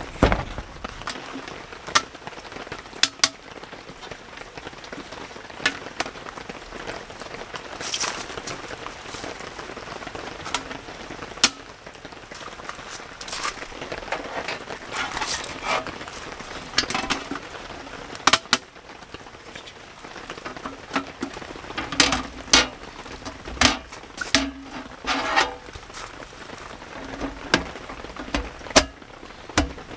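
Sharp clicks, knocks and rustles of camping gear being unpacked and set up, including the panels of a folding aluminium camp table, scattered irregularly over a steady hiss of falling rain.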